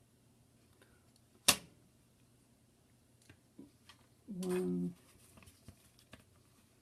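Small clicks and taps of phone-repair tools and parts on a workbench, with one sharp click about a second and a half in. Near the middle comes a short steady hum about half a second long.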